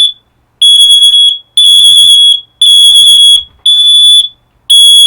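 Mains-powered interlinked smoke alarms sounding in alarm: a loud, shrill, piercing tone pulsing about once a second, each beep lasting most of a second, about five beeps. One alarm has been triggered and the others on the interlink are sounding with it.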